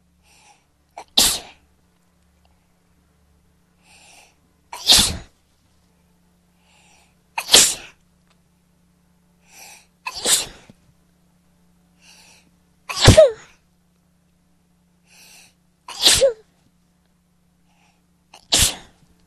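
A person sneezing seven times in a row, about every three seconds. Each sneeze is loud and sudden and follows a short, faint in-breath.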